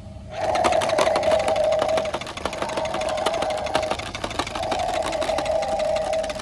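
Battery-powered toy truck's engine sound effect, set off by pressing a button on the cab, playing from its small speaker as a buzzing, rapidly clicking engine rumble. It starts about half a second in and runs in three stretches with short breaks.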